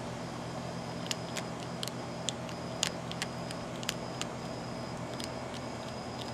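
Young Virginia opossum chewing dry cat food: irregular sharp crunches, about ten in a few seconds, over a steady low hum.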